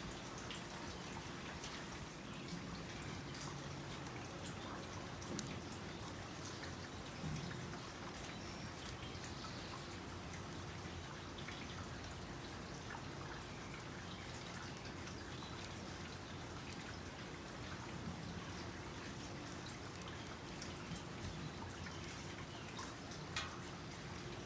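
Basket weaving being worked by hand: soft scattered ticks and crackles of the weaving material over a steady faint hiss, with a few sharper clicks.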